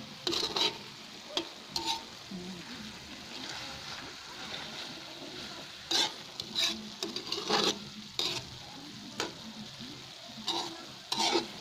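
A metal spoon scraping and knocking against a metal wok, about ten times, as laing (taro leaves in coconut milk) is stirred, over a steady sizzle of frying. The coconut milk has cooked down until its oil has separated out.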